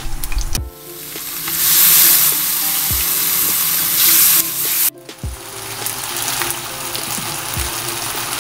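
Shrimp and diced vegetables sizzling in kung pao sauce in a hot wok as a ladle stirs them, the sauce reducing to a glaze. The sizzle cuts off abruptly about five seconds in and starts again.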